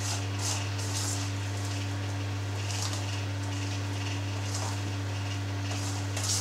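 Soft, short rustling and patting as fingers press an ash-and-salt coating onto a soft log of goat's cheese on a metal tray, over a constant low electrical hum.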